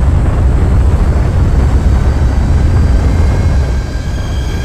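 Airbus A400M transport's turboprop engines and a loud rush of wind along the fuselage as the plane takes off and climbs, a dense, steady low roar. About three seconds in, a few held tones of music come in as the roar eases slightly.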